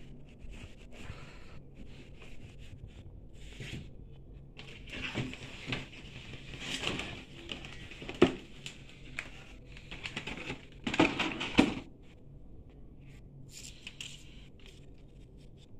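A paper towel and a cardboard doughnut box being handled: irregular rustling and scraping, with a sharp knock about eight seconds in and a louder cluster of scrapes a little after eleven seconds.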